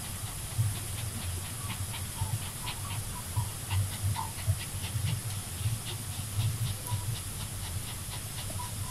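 Dog panting, a quick run of short breaths at about three to four a second, over a steady hiss and low hum.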